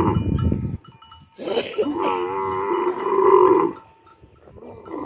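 Dromedary camel calling: a loud call that breaks off under a second in, then after a short pause a second, longer call with a wavering pitch lasting a little over two seconds.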